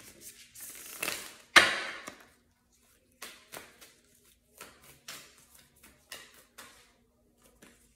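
Tarot cards being handled: a brief shuffling swish, a sharp slap of cards about one and a half seconds in, then a run of light, irregular taps and clicks as cards are handled and laid out.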